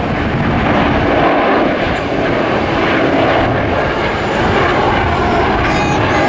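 Airbus A330-300 with twin Rolls-Royce Trent 700 turbofans climbing out after takeoff at climb thrust: a loud, steady jet engine noise.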